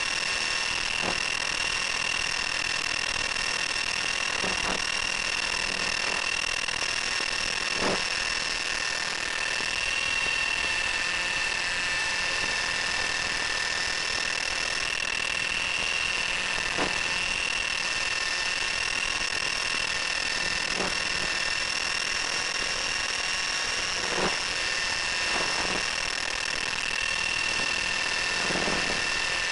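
Thunder Tiger Titan X50 electric RC helicopter in flight, heard from on board: a steady high whine from its electric motor and drivetrain, held at a constant pitch. A few soft knocks come through now and then.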